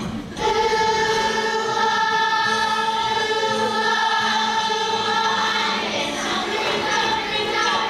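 Children's choir singing, coming in loudly about half a second in and holding long sustained notes.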